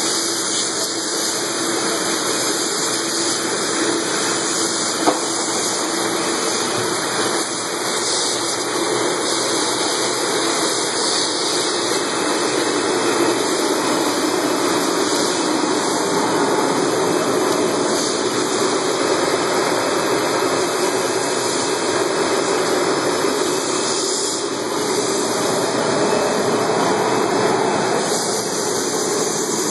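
Aloe leaf washing machinery running: a steady rush of spraying and churning water from the spray jets and the pump-driven recirculation of the immersion tank, over the hum of the motors.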